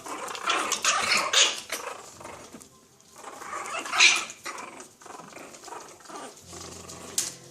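Four-to-five-week-old puppies play-fighting, giving small growls and yaps in irregular bursts, loudest about a second in and again about four seconds in.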